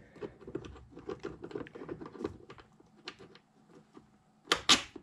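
Steel parts of a tool-rest bracket for a bench grinder clicking and rattling as they are handled and fitted together, with two sharp metal clacks near the end.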